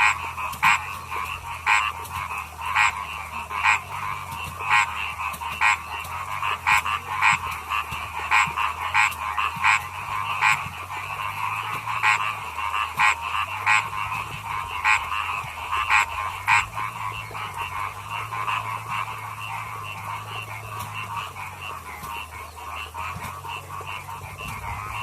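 Chorus of rice-paddy frogs croaking, with one louder frog giving short sharp calls about once a second that stop about two-thirds of the way through while the chorus carries on.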